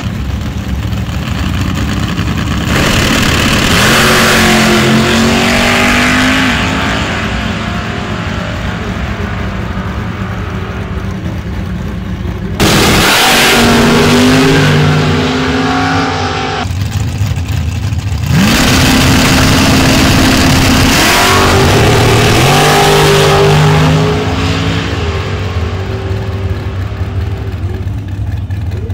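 Drag-racing cars' engines revving and accelerating hard, the pitch climbing and dropping through the gears, with the sound changing abruptly several times from one car to the next.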